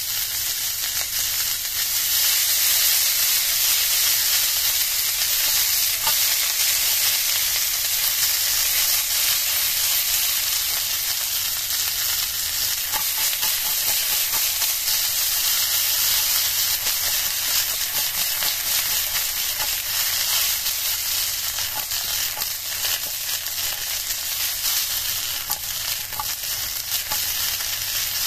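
Large snow-pea pods frying in oil in a nonstick frying pan: a steady sizzling hiss with many faint crackles and ticks.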